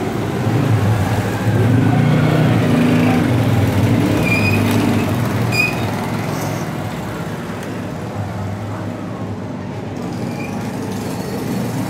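Motor-driven sewing machine running, stitching through jersey fabric with a steady hum that eases off a little past halfway, with a few light metallic clicks. The machine is skipping stitches on the jersey.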